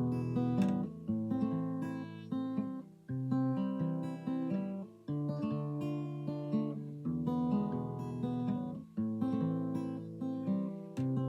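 Acoustic guitar music: picked and strummed chords, each ringing out and fading before the next.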